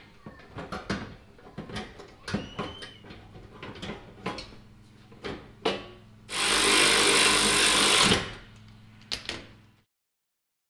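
Plastic mud-guard trim being handled and pressed into place at a wheel well, a string of small clicks and knocks. About six seconds in comes a burst of about two seconds of a cordless power tool running as it drives in a fastener, and a couple more knocks follow.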